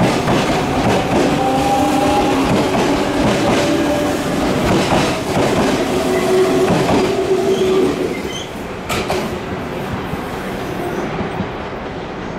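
JR Central stainless electric train pulling out along the platform: a steady motor whine over the clatter of wheels on the rails, dropping off about eight seconds in as the last car clears.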